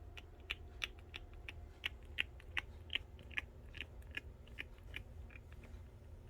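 Pet hedgehog making a run of sharp clicks, about three a second, thinning out near the end.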